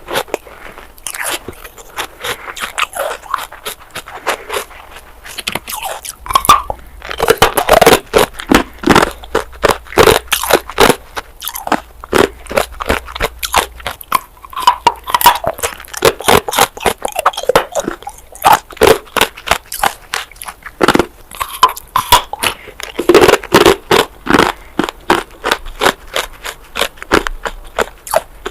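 Close-miked biting and chewing of hard ice, a dense run of sharp crunches and cracks in clusters every second or two.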